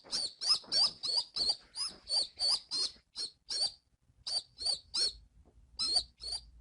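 Young pigeon (squab) peeping: a rapid run of short, high-pitched squeaks, about four a second, with brief pauses in the second half.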